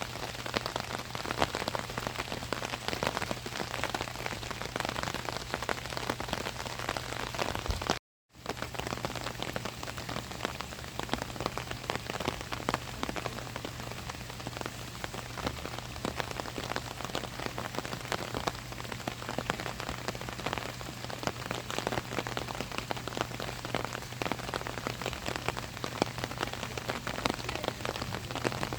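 Steady rain falling on an umbrella overhead, dense small drop ticks over an even hiss. The sound cuts out completely for a split second about eight seconds in.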